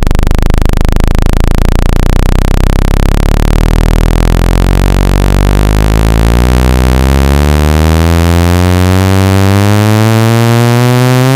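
Synthetic speaker-cleaning tone for ejecting water from a phone speaker: a loud, buzzy tone that starts as a very low, rapid pulsing and rises steadily in pitch, gliding smoothly upward until the end.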